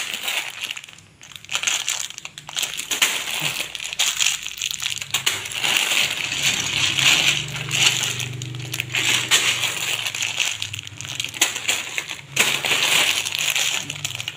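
Clear plastic bags of loose Lego pieces crinkling and rustling as they are rummaged through and lifted out of a tote bag, an irregular run of crackles.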